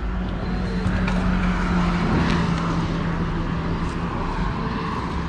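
A motor vehicle's engine hum going by on the road, steady and dipping slightly in pitch about two seconds in, over a steady low rumble.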